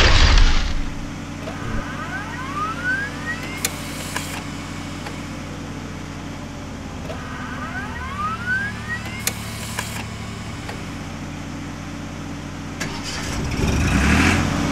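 Cartoon sound effects for a tractor transforming: a steady engine hum underneath. Twice a rising mechanical whir ends in sharp clicks, and a louder rushing swell comes at the start and again near the end.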